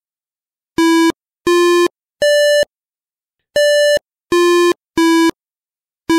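AUSION electronic travel aid's feedback tones: a series of short musical beeps, about a third of a second each and starting about a second in. Most are on one low note, and two near the middle are on a higher note. The change of note signals an object, such as a stone or kerb, on the ground ahead.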